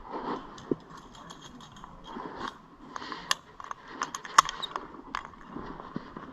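Metal climbing gear clinking and rattling: a series of sharp metallic clicks, thickest in the middle with one louder clack.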